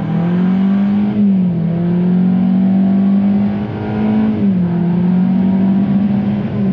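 2021 Hyundai Venue's 1.6-litre four-cylinder engine heard from inside the cabin under hard acceleration, its note climbing and then dropping suddenly as the transmission upshifts, about a second in and again about four and a half seconds in.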